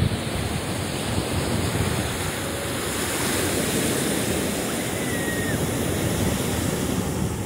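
Ocean surf breaking and washing onto a sandy beach, a steady loud rush of waves.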